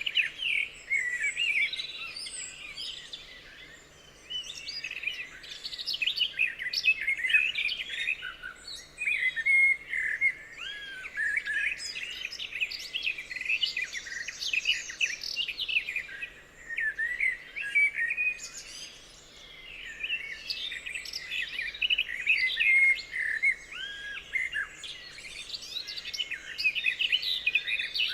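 Several songbirds singing and chirping at once, a dense chorus of overlapping calls and whistles that thins out briefly a couple of times.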